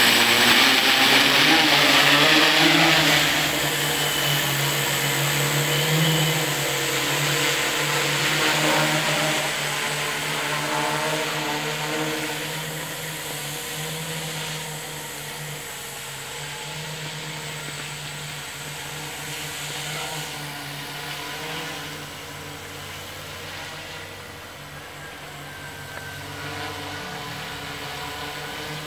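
Quadcopter spray drone's propellers and motors buzzing at a steady pitch, loudest as it lifts off close by in the first few seconds, then fading as it climbs away.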